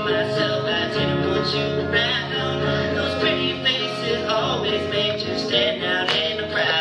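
Live music: an electric guitar played through an amplifier, with a voice singing along over it.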